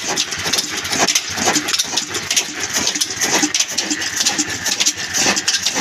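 Old black single-cylinder horizontal diesel engine running with its big flywheel turning, a regular knocking beat at about two a second over a steady mechanical clatter.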